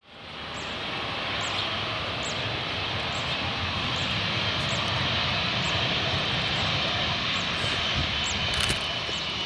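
Airbus A320-232's IAE V2500 turbofan engines running with a steady jet noise as the airliner rolls out along the runway after landing, with a thin steady whine on top. The sound fades in over the first second.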